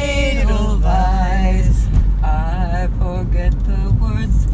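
Women singing inside a moving car, held, wavering notes over the steady low rumble of the car.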